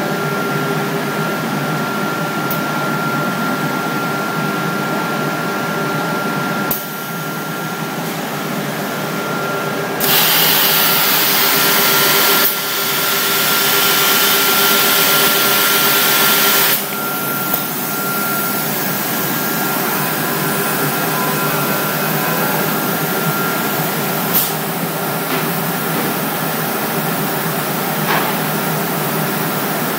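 Homag CNC machine running: a steady spindle whine over motor noise, with a louder hissing stretch lasting several seconds in the middle.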